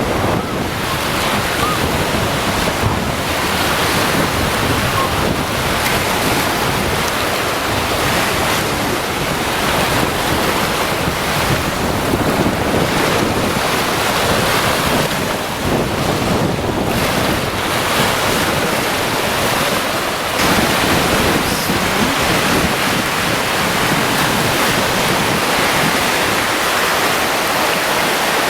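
Caspian Sea surf washing onto the shore, a steady rushing noise, with wind buffeting the microphone.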